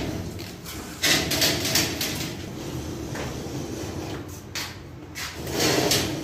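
A utility knife scraping along a wooden straightedge as it scores a fiber-cement (Hardiflex) board, in repeated scraping strokes. The strokes are loudest about a second in and near the end.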